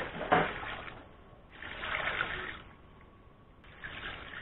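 Water poured into a large aluminium pot heaped with fish pieces, splashing onto the fish in three pours of about a second each.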